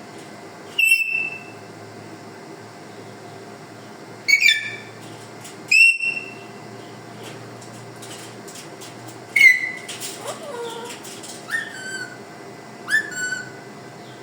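Parrot giving a series of short, high whistles, about seven in all, with gaps of one to three seconds between them; one call about ten seconds in slides down in pitch.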